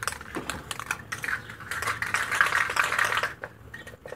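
A can of red spray paint being shaken, its mixing ball rattling in fast clicks, which stop about three seconds in.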